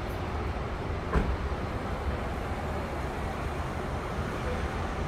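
Steady low outdoor rumble with a single knock about a second in.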